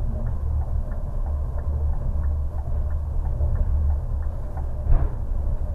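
Bus cabin at highway speed: a steady low rumble of engine and tyres, with a faint regular ticking and one thump about five seconds in.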